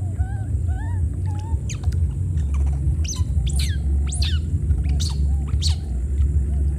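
Short arched calls in the first second, then a string of quick, high-pitched calls that fall steeply in pitch, repeated every half second to a second, over a steady low rumble.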